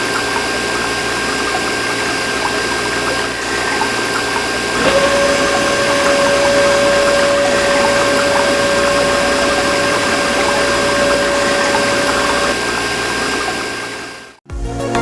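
Mini water pump running with water splashing. A steady whine joins about five seconds in and stops a couple of seconds before the sound cuts off near the end.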